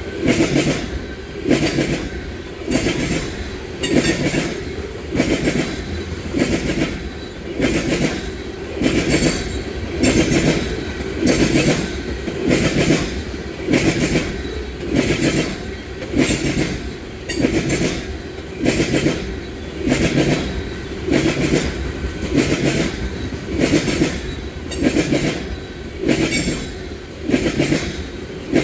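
Freight train of oil tank cars rolling past, its wheels clacking over rail joints in a steady rhythm, a group of clacks about every second and a quarter.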